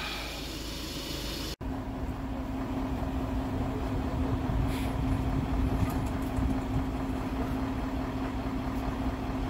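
Truck-mounted crane's engine running steadily, a constant hum over a low rumble, as the crane lifts a boat. It starts abruptly about a second and a half in, after a brief stretch of quieter ambient noise.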